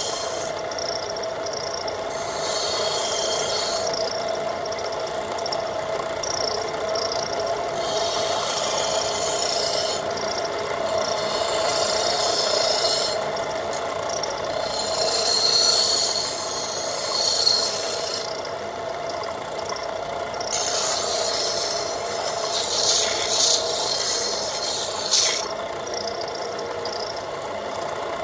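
Wooden handle being sanded or rasped in repeated strokes, each scratching pass lasting a second or two, over a steady hum.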